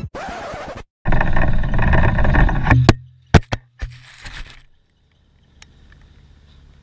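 Loud rattling and rumbling from a camera mounted on a moving golf-range ball-picker cart. About three seconds in come a few sharp knocks as the camera falls and hits the ground, leaving only a faint low hum.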